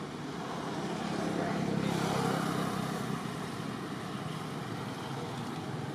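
Motor vehicle passing, a steady engine-and-road noise that swells about two seconds in and then eases back.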